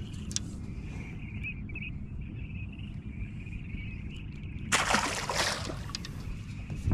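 A small crappie released back into the lake: one splash about five seconds in, lasting about a second, over a steady low rumble.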